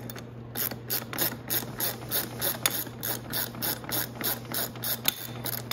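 Socket ratchet clicking in a steady run as it is swung back and forth to loosen the front wheel's axle nut, starting about half a second in.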